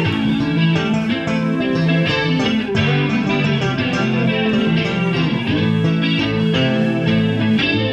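Live rock band playing an instrumental passage: electric guitar over bass guitar.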